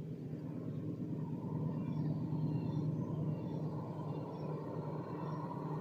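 Distant diesel locomotive engine, a low steady hum that grows gradually louder as the approaching train draws nearer, with small high chirps scattered over it.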